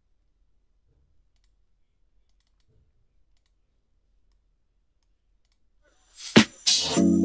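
Near silence with a few faint computer clicks, then music starts abruptly about six seconds in with sharp percussive hits and held notes.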